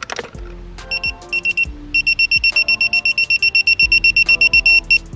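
Craftsman digital torque wrench beeping as a bolt is pulled tight: a few short beeps about a second in, then a rapid, even run of high beeps, about eight a second, signalling that the set torque of 86 inch-pounds has been reached.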